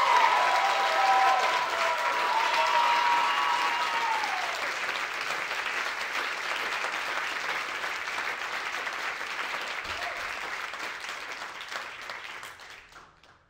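A congregation clapping and cheering, with shouts and whoops over the applause for the first few seconds; the clapping carries on alone and dies away near the end.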